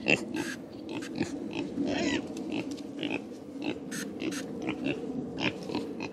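Farm animals making short, irregular noises in quick succession over a steady low murmur.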